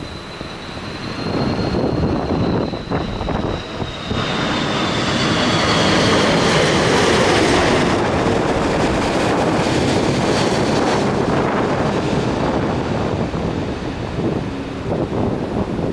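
Jet airliner on landing approach passing close overhead: a high engine whine that slides down in pitch as it goes by, over a broad jet rush that swells about four seconds in and stays loud.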